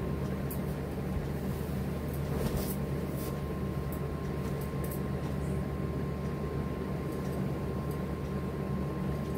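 A steady low hum with a thin, steady high whine over it, starting abruptly just before, with a few light rustles and ticks of silk saree fabric being unfolded and handled.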